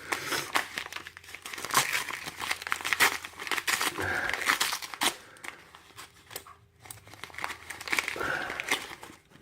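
Packaging being crinkled and pulled apart by hand as the next lock is unwrapped from the parcel: irregular rustling and crackling, with short pauses.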